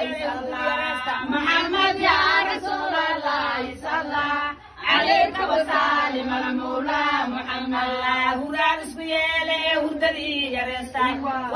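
Women singing a devotional chant in praise of the Prophet Muhammad, a lead voice with others joining. The singing breaks off briefly about four and a half seconds in, then carries on.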